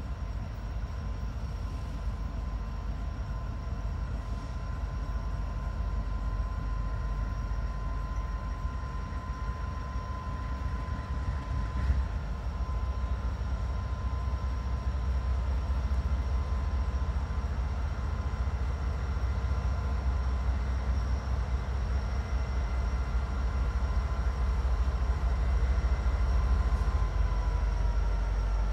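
Norfolk Southern diesel locomotive leading a freight train, its engine rumble growing louder as it approaches. A steady whine runs over the rumble and drops in pitch near the end.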